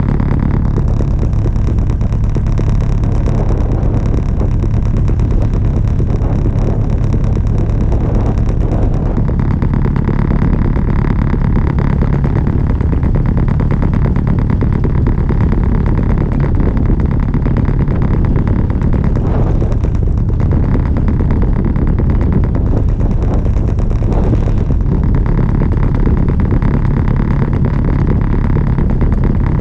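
An Albin Vega sailboat's engine running steadily while motoring, a constant drone with a steady hiss over it.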